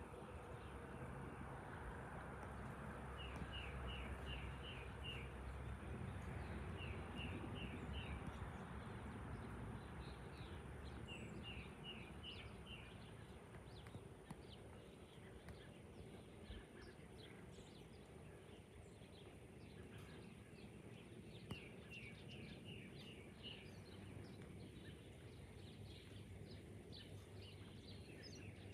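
Faint low rumble of a jet airliner at cruising altitude overhead, strongest over the first several seconds and then easing off. Over it, a small bird calls in short runs of four or five quick chirps, several times.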